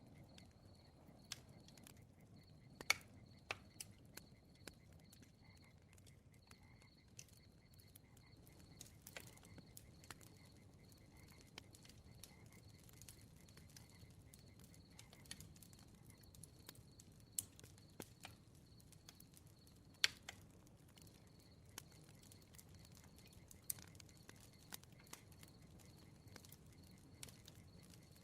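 Faint crackling campfire, with scattered sharp pops and snaps over a low hiss; the two loudest pops come about 3 seconds and 20 seconds in. A faint, even high chirping repeats in the background.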